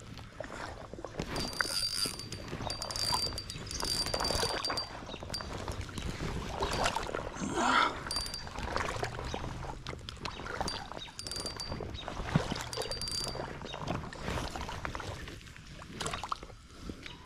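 Creek water sloshing and splashing around wader-clad legs as someone wades and fishes, with scattered small knocks. A thin high whine comes and goes in short patches.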